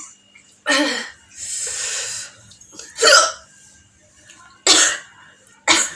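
A woman hiccuping repeatedly, four short sharp hiccups, with a breathy exhale after the first. The hiccups are brought on by eating hot chillies.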